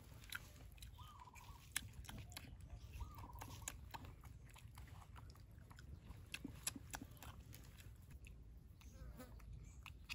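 Baby macaque chewing and biting fruit, faint crisp clicks of its bites and chewing scattered through. A few faint short squeaks come through about a second in, around three seconds and just before the end.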